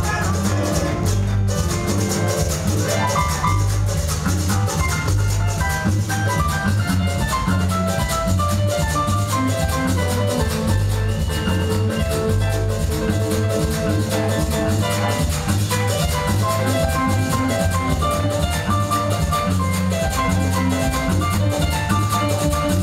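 Live cumbia band playing an instrumental passage: congas, timbales and drum kit keep a steady dance beat under electric bass and a bright lead melody.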